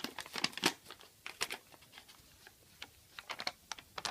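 Irregular crinkling and crackling in short clusters, like paper or plastic being crumpled or torn.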